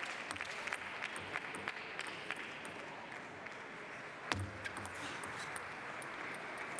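Scattered applause from the arena crowd that thins out over the first few seconds, over a steady crowd hum. A single sharp knock sounds about four seconds in.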